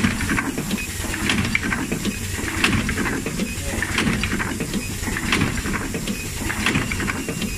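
SKP-1N rotary coffee capsule filling and sealing machine running, with a burst of air hiss and clatter repeating about every 1.3 seconds as the turntable indexes, over a steady low running noise.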